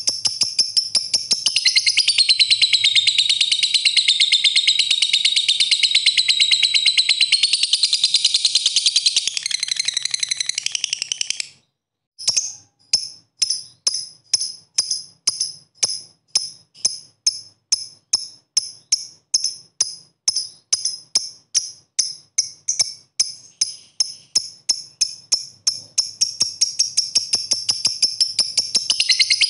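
Lovebird's long 'ngekek' call: a rapid, unbroken, high-pitched chattering trill. It breaks off about eleven seconds in. After a short pause come separate sharp ticking chirps, about three a second (the 'ngetik' call), and the continuous trill returns near the end.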